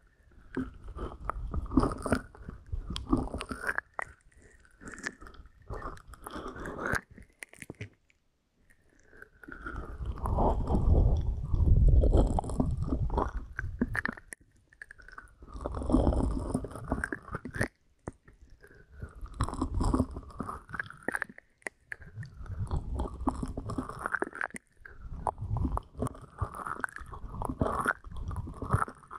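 A hand rubbing and pressing directly over an ear-shaped ASMR microphone, as if massaging medicine into the ear: a close, muffled rubbing with a deep rumble and crackle. It comes in about seven strokes of one to five seconds each, with short pauses between them.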